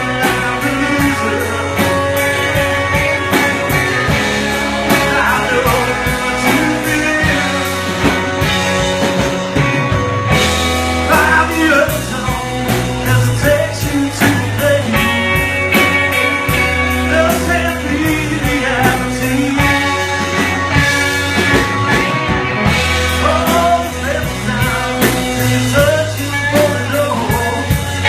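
Indie rock song playing at a steady loud level: a band with electric guitar, bass and a steady drum beat under a singing voice.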